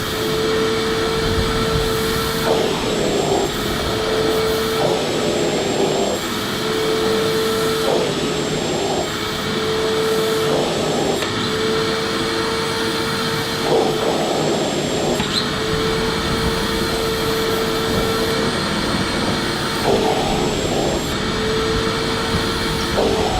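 Electric vacuum cleaner running steadily: a constant motor whine over rushing air. Short swells of air noise come every two to three seconds.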